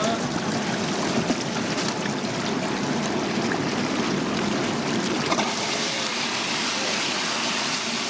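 Steady rushing, bubbling water in the stainless steel tank of a vegetable washing machine, the water churned by air bubbles as lettuce is washed.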